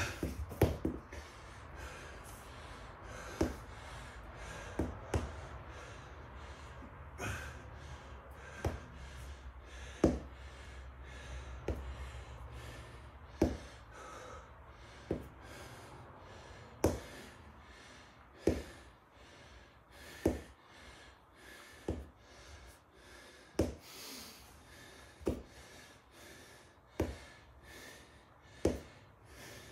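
A man's forceful breaths under exertion during leg raises: a short sharp exhale about every one and a half to two seconds, one with each rep.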